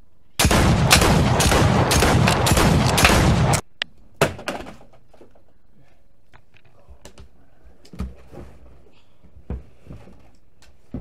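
A burst of rapid automatic gunfire, a film sound effect, lasts about three seconds and cuts off suddenly. A sharp thump follows, then a few softer thumps.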